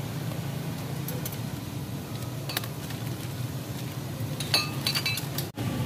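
Ceramic bowls and spoons clinking as noodle bowls are filled and handled, in scattered light knocks, with a quick cluster near the end. A steady low hum runs underneath.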